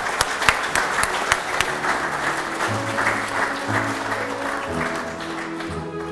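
Audience applauding, dying away over the last couple of seconds, over instrumental background music.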